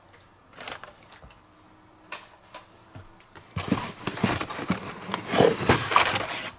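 Plastic blister-carded Hot Wheels die-cast cars rustling and clattering against each other and the cardboard box as a stack of them is pulled out. This starts about three and a half seconds in, after a few faint handling clicks.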